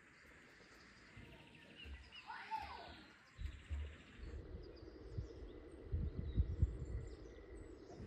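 Rural outdoor ambience with a single bird call about two and a half seconds in, then a low rumble with a few dull thumps in the second half.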